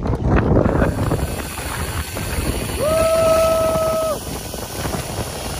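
Wind blowing on the microphone, and about three seconds in a man lets out one held, steady yell lasting just over a second.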